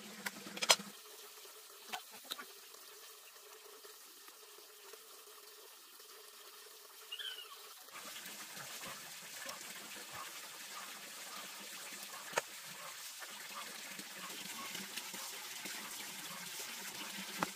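A cleaver knocking a few times on a wooden chopping block as raw pork is cut, the loudest knock about a second in, others near two seconds and twelve seconds, over a faint steady hiss.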